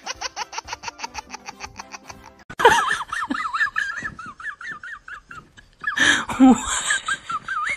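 Laughter: a run of quick, rhythmic 'ha-ha' bursts for about the first two seconds, then a higher, wavering laugh in two stretches.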